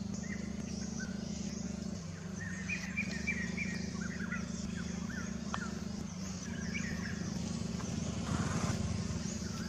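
Birds chirping in short repeated calls over a steady low hum, with a brief louder low rumble near the end.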